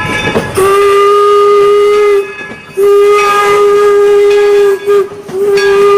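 Steam train whistle sounding three long, steady blasts, after a short hissing rush at the start.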